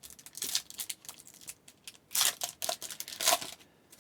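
Trading-card pack wrapper crinkling and tearing as a pack of hockey cards is opened by hand, with quick rustles and two louder rips about two and three seconds in.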